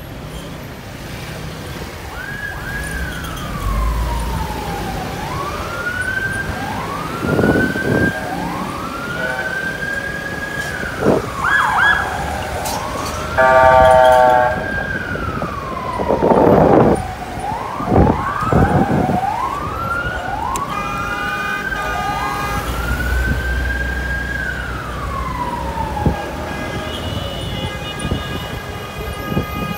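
Emergency vehicle sirens wailing, each rising and falling slowly, with more than one sounding at once in places. A car horn honks loudly about halfway through, and steady horn-like tones join in the last several seconds.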